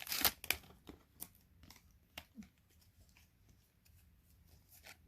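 Crinkling and clicking of a foil trading-card pack wrapper and cards being handled, busiest in the first second, then only a few faint ticks.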